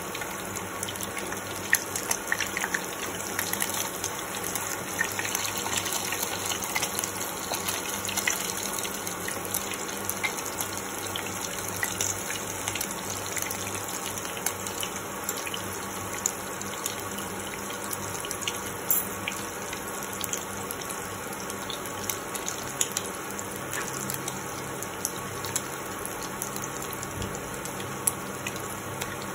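Egg pakoras sizzling as they fry in hot refined oil in a pan: a steady frying hiss with scattered crackles and pops of spattering oil.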